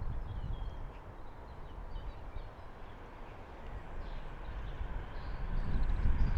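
Outdoor ambience of low wind rumble on the microphone, with faint birds chirping. The low rumble builds toward the end.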